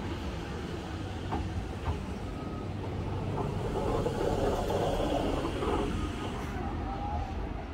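Appenzellerbahnen Walzer electric multiple unit rolling slowly past close by, wheels running on the rails, with a few sharp clicks early on. The running noise grows louder about four seconds in, then eases.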